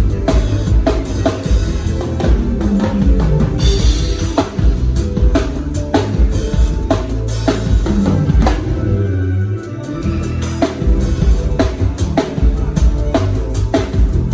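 Drum kit playing a steady groove at a band sound check, over a sustained low bass; a cymbal crash rings out about three and a half seconds in, and the bass drops away for a moment near the ten-second mark before the groove comes back in.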